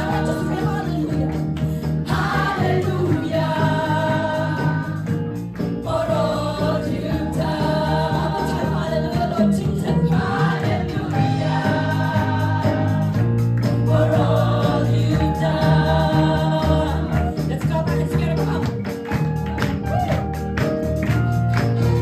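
Gospel choir singing together into microphones over instrumental backing with a steady bass line. Near the end the singing thins and sharp rhythmic hand claps come in.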